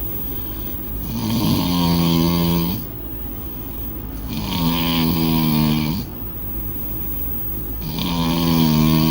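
A person snoring loudly in deep sleep: three long snores about three seconds apart, each a steady buzzing tone on the in-breath, with quieter breathing between them.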